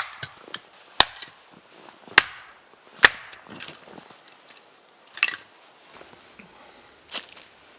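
Wood being chopped: four sharp blows about a second apart, then two weaker ones a couple of seconds apart.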